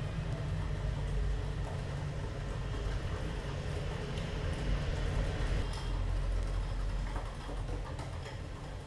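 Hand whisk beating thick semolina batter in a glass bowl: a steady stirring and scraping with light clicks of the wire against the glass, over a low rumble.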